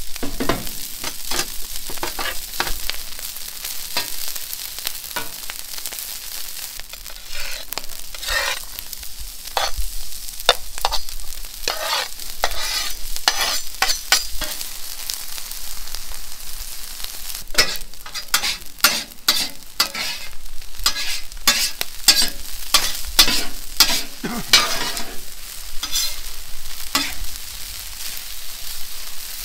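Day-old rice frying in rendered pork belly fat on a flat-top griddle, a steady sizzle under the repeated scraping and tapping of a metal spatula on the steel as the rice is spread and broken up.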